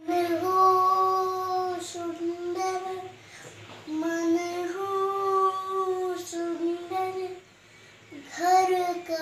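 A young girl singing a prayer solo, slowly, in long held notes, with two short breaks for breath about three and seven and a half seconds in.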